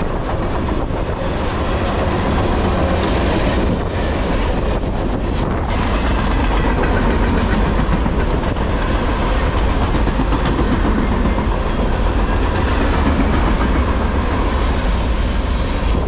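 Freight cars of a long manifest train, tank cars and then open-top cars, rolling past at close range: steel wheels on the rails making a steady, loud rumble.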